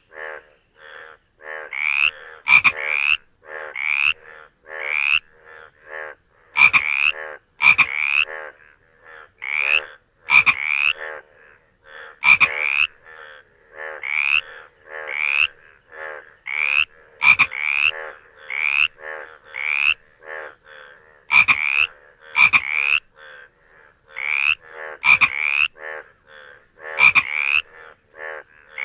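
Frogs croaking: a steady run of short, pitched calls, about one to two a second, some louder with a sharp click at their onset.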